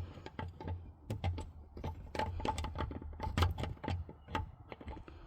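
Irregular light clicks and taps of metal parts being worked by hand at the shifter opening of a G56 manual transmission.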